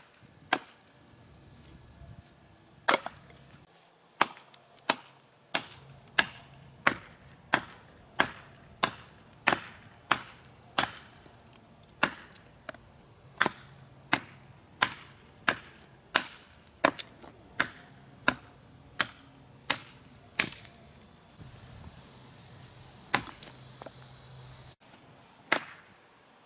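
Estwing EBM machete's 1055 carbon-steel blade chopping a very hard, dry, weathered branch on a stump: a long run of sharp chops, about one and a half a second, with two short pauses. Insects buzz steadily underneath.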